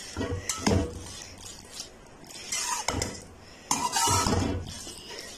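Slotted metal spatula stirring sauced macaroni in a metal pan, scraping and clinking against the pan in a few short bouts, the longest scrape about four seconds in.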